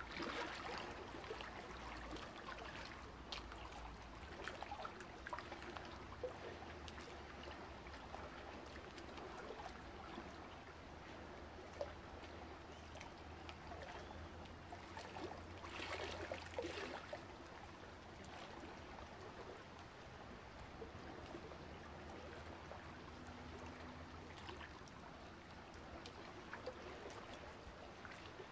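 Water trickling steadily from an aquarium filter's outflow into the tank, a little louder for a moment about halfway.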